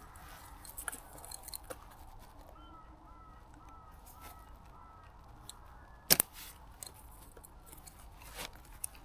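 Folding camp stool being assembled: its metal legs are slotted and clicked into the seat frame, giving scattered light clicks and rattles, with one sharp knock about six seconds in.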